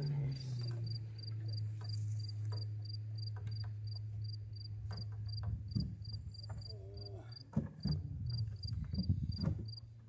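A cricket chirping in an even rhythm, about three high chirps a second, over a steady low hum, with a few short knocks and rattles.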